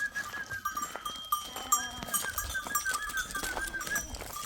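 Bells on a herd of sheep and goats ringing continuously in a jangle of overlapping clinks, with a short animal call about two seconds in.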